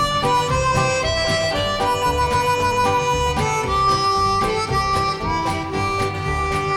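Background music: a melody of held notes over bass and a steady beat.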